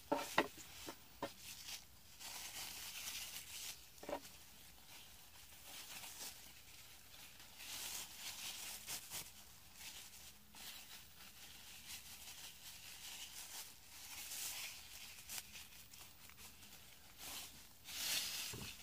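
Thin plastic grocery-bag strips rustling and crinkling in irregular bursts as hands handle them, with a few light clicks near the start.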